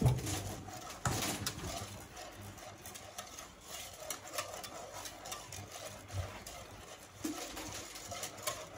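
Wire balloon whisk stirring milk in a stainless steel saucepan: a steady run of light scraping and clicking of the wires against the pan, with the milk swishing, as sugar is dissolved into the warming milk.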